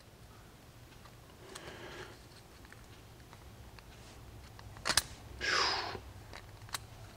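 Faint clicks and scrapes of a new piston ring being spread by hand and worked onto a Robin EH-29C engine piston, a tight fit. There is one sharp click about five seconds in, followed by a short rushing noise.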